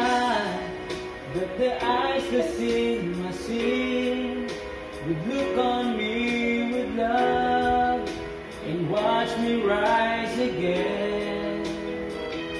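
Slow worship-ballad karaoke music with a sung melody over the accompaniment.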